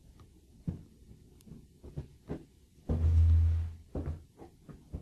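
A short, muffled low rumble of just under a second about three seconds in, amid faint scattered knocks and ticks in a quiet room.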